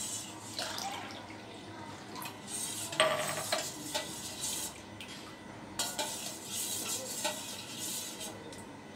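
Metal spoon stirring and scraping around a stainless-steel bowl of mango pulp and water, with clinks against the bowl; the loudest knock comes about three seconds in.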